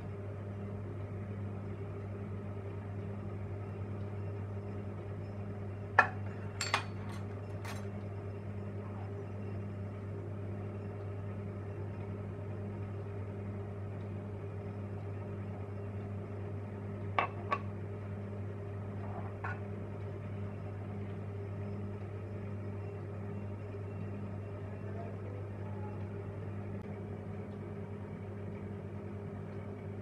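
A steady low electrical hum throughout, with two short clusters of sharp clinks and knocks against a steel mixing bowl as ingredients go in, one around six seconds in and another around seventeen seconds in.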